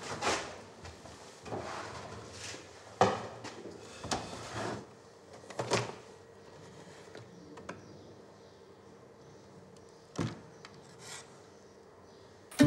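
A small refrigerator being opened and rummaged through: a run of irregular knocks, clicks and rubbing sounds, the loudest knock about three seconds in.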